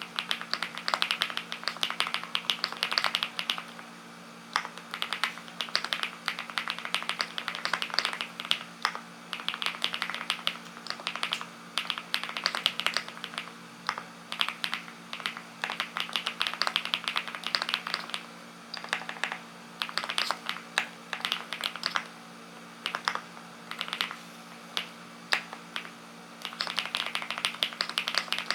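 Typing on a Linky 87 tenkeyless mechanical keyboard: rapid key clicks in bursts of a few seconds with short pauses between.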